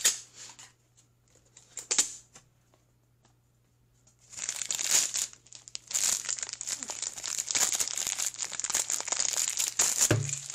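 Packaging on a toy case being crinkled and torn open by hand: a short crinkle at the start and a single sharp crack about two seconds in, then after a pause, continuous crinkling and tearing from about four seconds in. A thump near the end.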